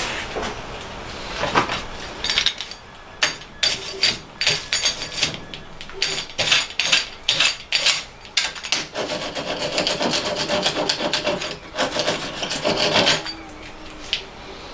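Hand wire brush scrubbing a freshly MIG-welded steel part held in a vice: irregular scratchy strokes that start about two seconds in, come fast and close together in the second half, and stop shortly before the end.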